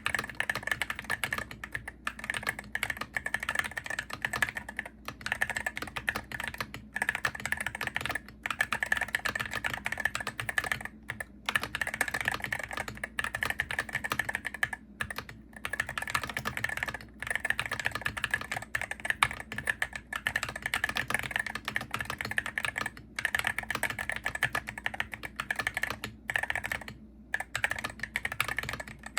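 Typing on a Hero68HE gaming keyboard: a fast, continuous run of key clicks, broken by a few brief pauses.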